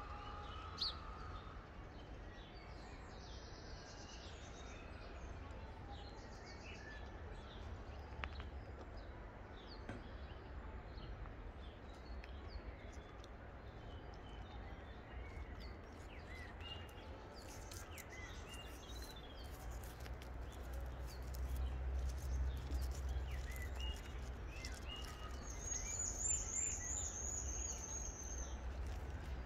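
Outdoor ambience: a steady low rumble with small birds chirping here and there, and a high, warbling bird call near the end.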